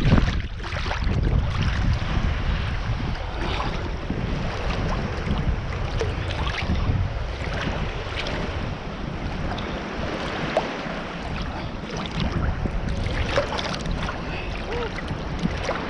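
Sea water sloshing and splashing around a swimmer, with short splashes scattered through, under steady wind rumble on the microphone.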